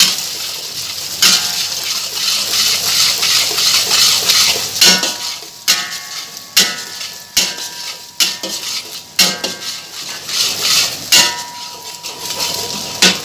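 Eggs sizzling in hot oil in a steel wok while a metal wok spatula scrapes and stirs them. From about five seconds in, the spatula clanks against the wok roughly once a second, each strike leaving the wok ringing briefly.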